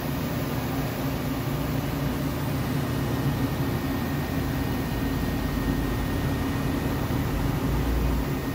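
Hankook Protec 9-NC heavy CNC lathe running with a steady hum as its spindle turns the finished workpiece, with a faint high whine.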